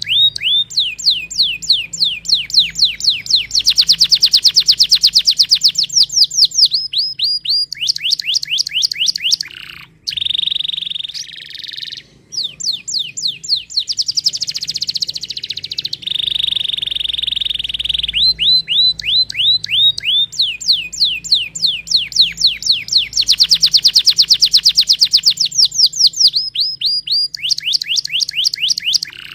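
Domestic canary singing a loud, continuous song: long fast trills of repeated downward-sweeping notes, broken now and then by short steady rolling notes. The song pauses briefly about ten seconds in and again about twelve seconds in.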